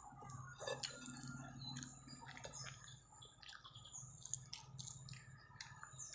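Faint close-up eating sounds of a person eating by hand: small wet clicks and chewing noises, over a low steady hum.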